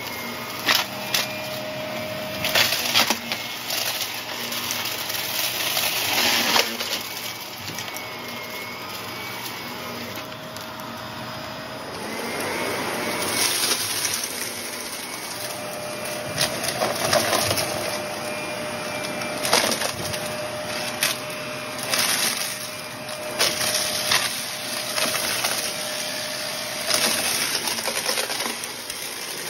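Shark vacuum running over carpet, its brushroll sucking up a thick pile of dry crunchy debris: a steady motor hum under frequent irregular clicks and crunches as the bits are pulled up into the head.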